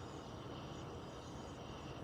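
Central air conditioning system running: a steady low rumble and rushing noise with faint, constant high-pitched tones over it.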